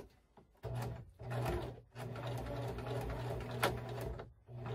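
Electric sewing machine stitching a wide zigzag in reverse to lock the start of a seam: two short runs, then a longer run of about two seconds, with one sharp click near the end.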